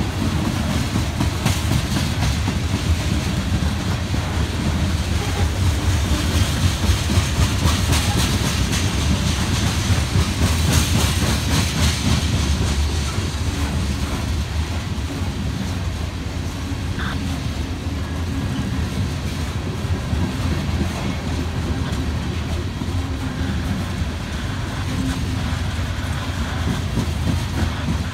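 Cars of a loaded coal train rolling past at close range: a steady low rumble of steel wheels on rail with repeated clicking of the wheelsets, denser in the first half.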